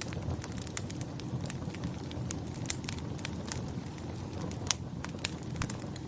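A fire crackling: a steady low rumble of flames under frequent sharp pops and snaps, with two louder snaps near the end.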